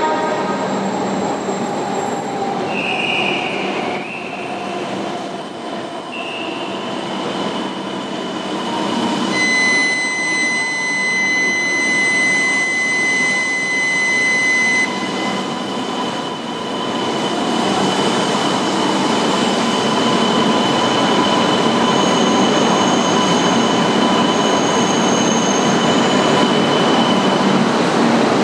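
E5 series Shinkansen train departing from a station platform. A steady high-pitched electronic warning tone sounds for about five seconds, then the train's running noise builds as it starts to pull away.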